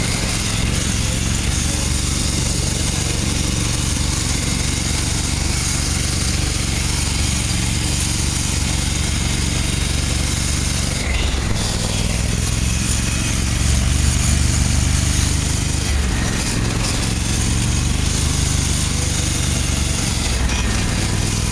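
A vehicle engine running steadily under way, with a hiss of wind or road noise over it; the engine note shifts slightly about eleven seconds in.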